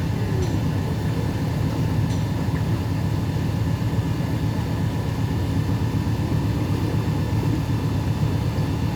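Tour boat's engine running steadily at cruising speed, a constant low drone with a faint steady hum above it.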